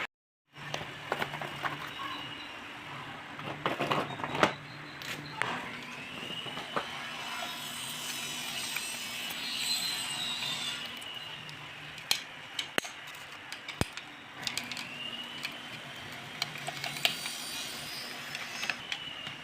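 Scattered metallic clicks, knocks and clinks of hand tools working on a scooter, over a faint steady hum; no engine runs.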